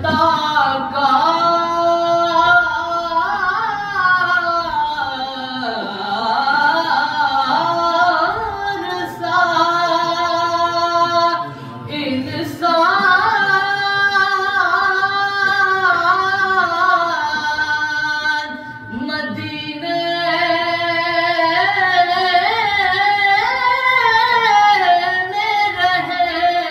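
A man sings an Urdu naat, a devotional Islamic poem, solo and without instruments, in a high voice. He holds long, ornamented notes that bend up and down, and breaks off briefly twice to breathe.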